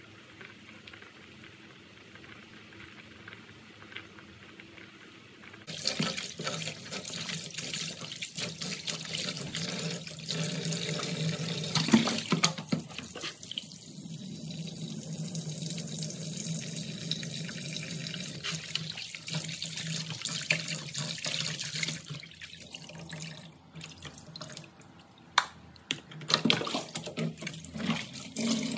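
Kitchen tap suddenly turned on about six seconds in, running steadily into a plastic basin of raw pork bones in a steel sink. It is followed by splashing, sloshing and sharp knocks of the basin as the bones are rinsed by hand. The first few seconds hold a fainter steady sound, the soup pot boiling.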